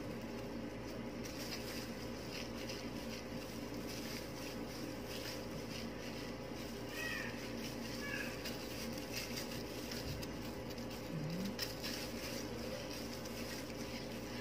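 Faint rustling and brushing as straightening cream is worked through hair with a tint brush and plastic-gloved hands, over a steady low electrical hum. A couple of faint short chirps come about seven and eight seconds in.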